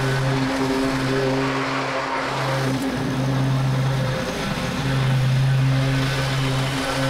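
Walk-behind lawn mower engine running steadily while cutting tall, overgrown grass. Its hum dips briefly a few times.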